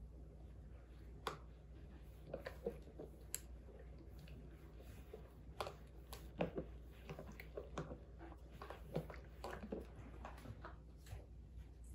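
Steam iron pressing a cotton mask piece flat on a tabletop: quiet scattered taps, scrapes and fabric rustles as the iron is pushed, lifted and set down.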